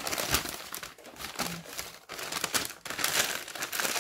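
A crumpled brown paper takeout bag being handled and smoothed flat, the paper crinkling and rustling in irregular bursts.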